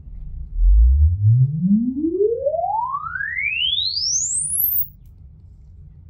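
Sine-sweep test tone from the loudspeakers, one pure tone rising steadily from a low hum to a very high whistle over about four and a half seconds, then cutting off suddenly. It is the BACCH crosstalk-cancellation calibration measuring the listener's left and right ears.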